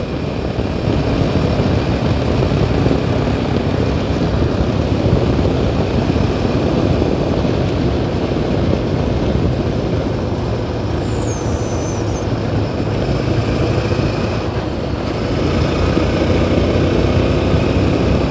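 Yezdi Adventure's single-cylinder engine running as the motorcycle is ridden along at a steady pace, mixed with road and wind noise. The engine pitch rises slightly near the end.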